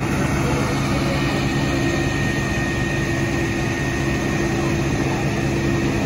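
Large vehicle engine idling, a low hum with a thin high whine held steady above it.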